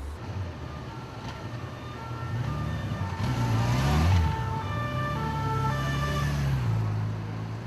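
Two-tone emergency-vehicle siren alternating between a high and a low note over a vehicle engine, swelling as it passes close and loudest about halfway through.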